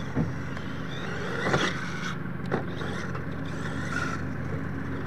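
Radio-controlled scale monster truck driving and sliding on loose dirt, its tyres throwing up dirt, with three sharp knocks in the first three seconds over a steady low hum.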